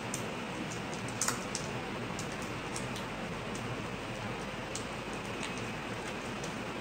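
Glazed paper crinkling and clicking as it is folded and pressed around a small cardboard piece, with scattered short ticks, the sharpest about a second in, over a steady hiss.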